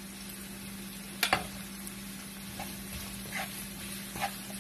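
Diced onion, carrot and bell pepper sizzling in a nonstick wok while a spatula stirs them, with two sharp clicks a little over a second in and softer scrapes of the spatula after.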